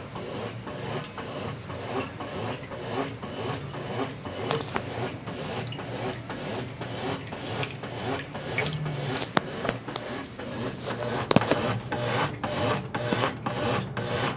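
Consul Facilite 10 kg top-loading washing machine in its wash stage, its Brastemp BWL09 agitator churning clothes and water back and forth. Frequent short knocks run through the churning, the sharpest about eleven seconds in.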